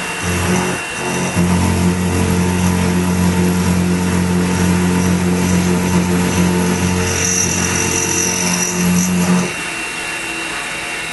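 X2 mini mill's end mill cutting aluminium, with a steady low hum during the pass. About two seconds before the end the cutting noise drops off and the spindle runs on more quietly.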